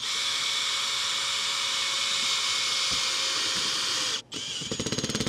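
Cordless drill driving a pan head screw through a sheet-metal patch into a metal roof, its motor running steadily for about four seconds. After a brief stop it runs again briefly, with rapid clicking near the end.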